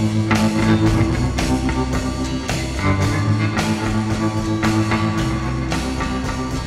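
Instrumental passage of a rock and roll recording, with guitar over a drum kit keeping a steady beat and no singing.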